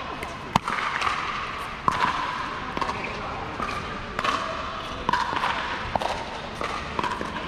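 Pickleball paddles hitting a hollow plastic ball: sharp pops, the loudest about half a second in, with a few more scattered pops later.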